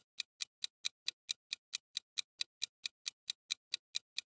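Clock-tick sound effect of a quiz countdown timer: short, sharp, evenly spaced ticks, about four and a half a second, marking the time left to answer.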